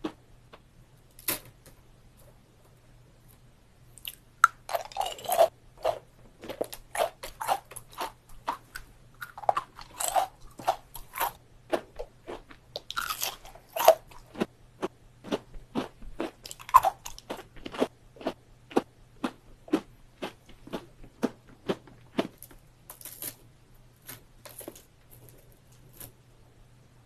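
Chewing of kohakutou (Japanese amber sugar candy): crisp crunches and bites as the sugar-crusted jelly breaks between the teeth. After a short lull the crunches come thick and fast from about four seconds in.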